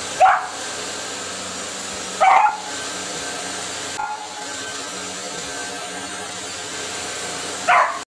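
Upright vacuum cleaner running steadily while a beagle puppy barks three times: once just after the start, once about two seconds in, and once near the end.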